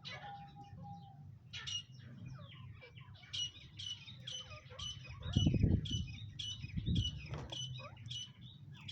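Teetar (partridges) calling: a rapid series of short, repeated high chirping notes, about two or three a second, starting about three seconds in. Two louder low thumps come near the middle.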